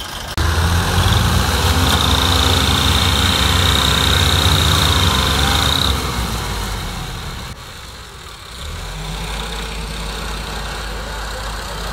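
Ford 3610 tractor's diesel engine running hard under load, pulling a heavily loaded trolley stuck in mud; it comes in loudly about half a second in, with a steady high whine over it for a few seconds. About six seconds in it gives way to tractor engines running more quietly.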